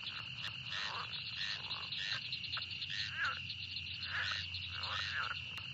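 Pond or marsh ambience: frogs croaking at irregular intervals over a steady high-pitched trill.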